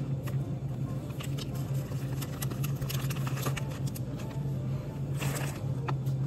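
Steady low hum in a shop, with light crinkles and taps of plastic snack wrappers being picked up and put back on a shelf; a louder wrapper crinkle about five seconds in.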